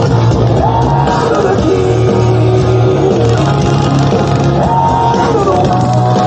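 Rock music with a singer holding long notes over guitar and a steady bass line.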